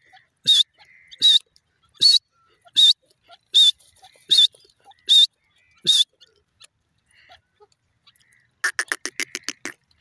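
Grey francolin calling: a series of short, shrill notes repeated evenly about once every three-quarters of a second, eight in all. After a pause, a fast run of about ten short notes near the end.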